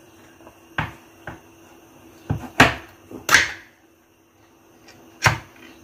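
Ring-pull metal can being opened by hand: a series of short sharp clicks and snaps as the tab is lifted and the lid pulled back, the two loudest about two and a half and three and a half seconds in.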